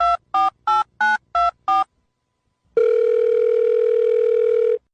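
Telephone keypad tones: six short two-tone dialing beeps about three a second, then after a brief silence one long steady beep lasting about two seconds.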